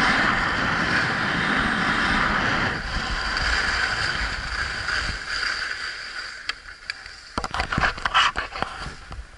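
Skis sliding over groomed snow, a steady hiss that fades away about halfway through, followed near the end by a run of sharp scrapes and knocks.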